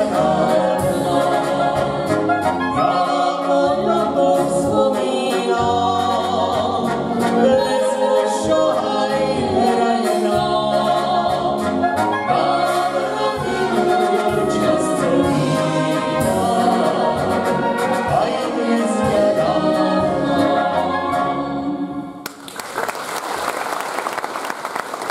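Live Slovak folk brass band (dychovka) playing a song with singers, the tuba, trumpets and trombones carrying the tune and beat. The music stops abruptly near the end and the audience breaks into applause.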